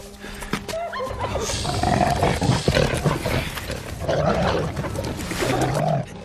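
Film sound effects of a pack of snarling, growling predators, the viperwolves closing in on a torch-bearer in the dark forest: a run of short, pitched snarls one after another.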